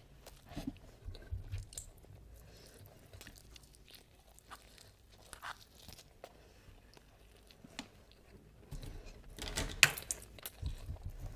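Close-miked chewing of a handful of biryani rice and mutton, with short wet mouth clicks and smacks. The chewing grows louder and busier near the end.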